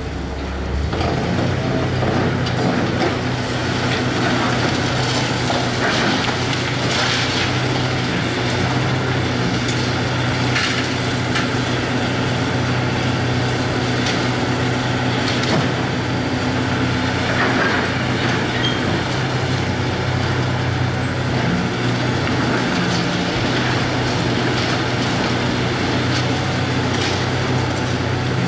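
Hitachi 670 LCH excavator's diesel engine running steadily under load, its note stepping up about a second in. Scattered cracks and crunches of wood and debris breaking in the demolition sound over it.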